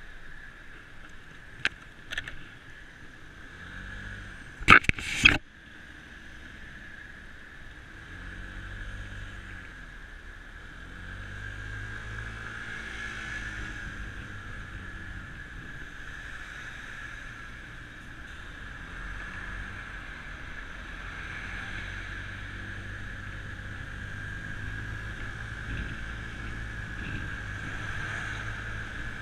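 Yamaha maxi-scooter engine running in motorway traffic, its pitch rising and falling with the throttle, over road and wind noise and a steady high whine. A few sharp knocks come in the first seconds, the loudest a quick cluster of three about five seconds in.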